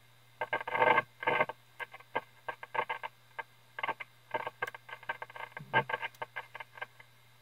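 Irregular crackling and popping from the speaker of a 1932 Tiffany Tone tuned radio frequency set, over its steady hum, as the outside antenna wires are being clipped onto the set: an unsteady antenna connection.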